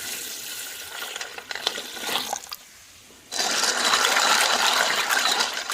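Water running and splashing as sea snails are rinsed in clean water, with a few sharp clicks in the first half. The water dies down for under a second about two and a half seconds in, then comes back louder.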